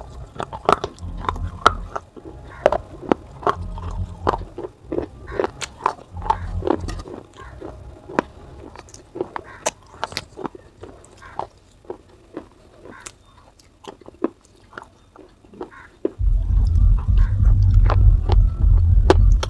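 Pieces of baked clay pot crunched and chewed in the mouth: a run of sharp, crisp cracks and clicks that thin out after the first half. About three-quarters of the way in, a loud low rumble starts and continues.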